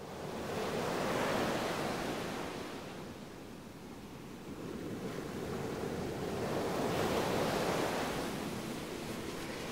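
Ocean waves breaking and washing, swelling up twice: once about a second in and again around seven seconds in.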